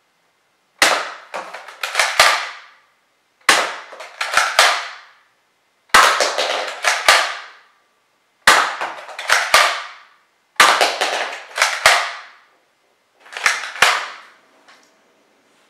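Nerf Elite Strongarm blaster firing, in six bursts about two and a half seconds apart. Each burst holds two or three sharp cracks, each with a ringing tail that fades over about a second.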